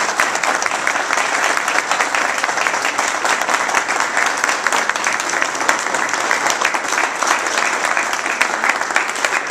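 A room of people applauding steadily after a speech, a dense and unbroken patter of many hands clapping.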